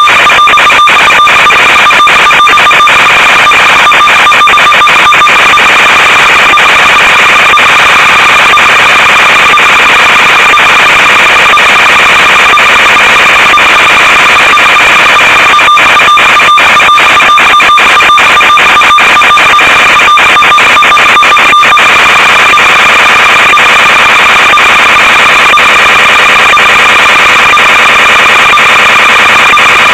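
Loud, constant electronic hiss with a steady high buzzing tone, the static of an analog FPV video link's audio channel rather than any sound of the plane. It crackles with quick dropouts during the first few seconds and again from about a third to over two thirds of the way in.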